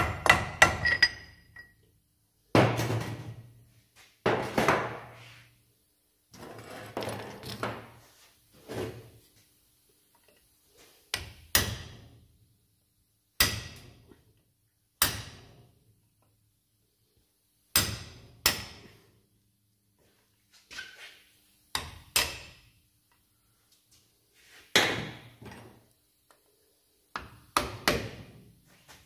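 Hammer blows on metal: a heavy hammer driving a drift or screwdriver at the front hub of a Range Rover Classic. About a dozen sharp strikes come at irregular intervals, some in quick pairs, each ringing briefly.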